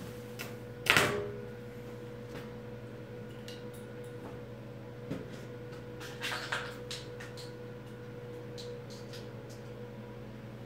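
Stick (arc) welder humming steadily at idle with the arc out. A sharp metallic knock comes about a second in, then scattered light clicks and taps as the electrode holder is handled.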